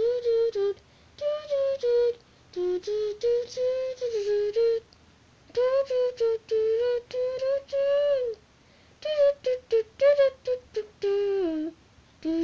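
A lone voice humming a wordless tune, unaccompanied, in short phrases with brief pauses between them; the pitch steps up and down, and one phrase near the end slides downward.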